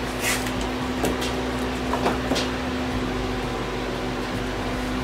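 Steady mechanical hum of running shop equipment, like a fan, with a few faint light clicks in the first half.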